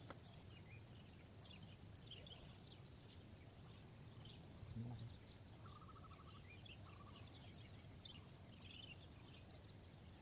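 Faint outdoor ambience: a steady high insect drone with scattered small chirps, and a short rapid trill about six seconds in.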